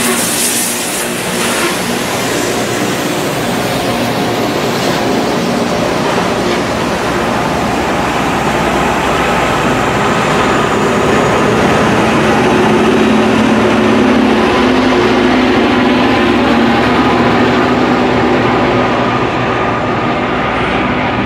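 LORAM rail grinder train passing while grinding the rail. A harsh high hiss from the grinding stones is strongest in the first second or so and then fades, while the steady drone of the grinder's engines carries on throughout.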